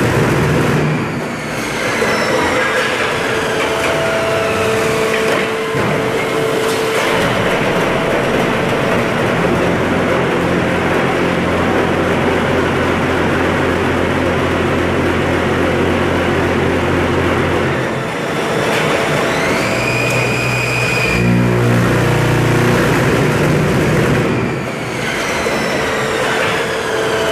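Poyatos Novabloc concrete block machine running through a production cycle. Loud continuous mechanical clatter, with a steady low hum lasting about eight seconds from roughly ten seconds in, then a rising whine about nineteen seconds in.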